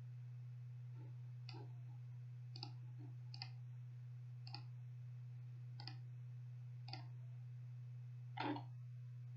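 Computer mouse clicking: short single clicks about once a second, with a louder double click near the end, over a steady low hum.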